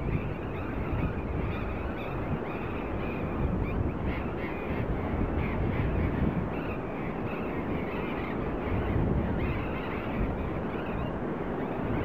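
A colony of burrowing parrots calling, many harsh squawks overlapping in a continuous chorus, with wind buffeting the microphone.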